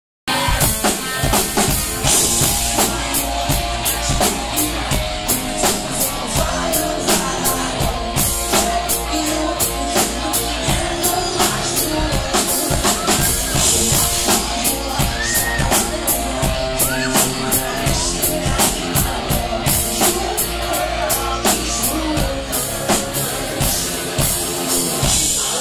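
Live rock band playing, driven by a steady, fast drum kit beat. The drum hits drop away near the end.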